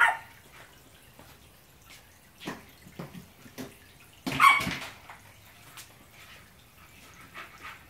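Liquid dripping and trickling from the mash tun's drain tube into the collecting bin in short, irregular splashes, with a louder sharp sound about four and a half seconds in.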